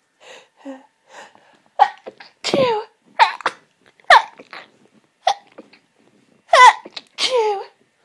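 A person's hay-fever sneezing fit: a quick run of sneezes, several of them half-stifled, with sharp catching breaths between them and voiced endings that drop in pitch.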